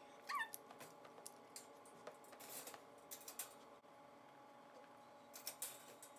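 A puppy's short, high whimper, followed by faint scattered clicks and jingles of collar tags and a wire crate.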